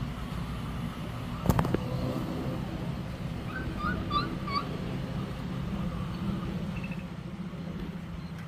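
Steady low rumble of a running vehicle, with a sharp click about one and a half seconds in and a bird chirping a few times near the middle.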